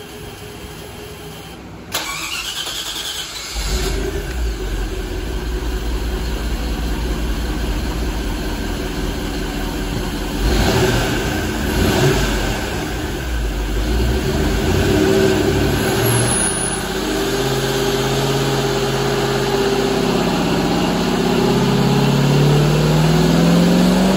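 Mercruiser 5.0 liter MPI marine engine, a 305 cubic inch small-block Chevrolet V8 with wet exhaust, cranked by its starter about two seconds in and catching a moment later, then running on the engine dyno. Over the last several seconds its pitch climbs steadily as the dyno pull sweeps it up through the rev range under load.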